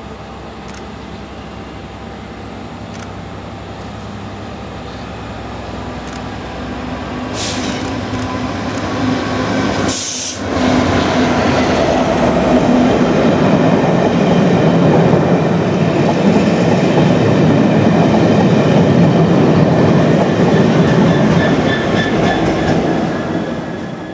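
Class 66 diesel locomotives, with their two-stroke V12 diesel engines, passing with a test train. A steady engine drone grows louder as the train approaches. From about halfway the train and its rear locomotive go by close, with a loud rumble that starts to fade near the end.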